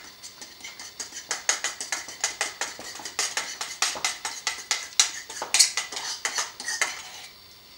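A basting brush dabs and slaps barbecue sauce onto alligator ribs in a metal roasting pan. It makes a quick run of wet taps and clicks, several a second, which stops shortly before the end.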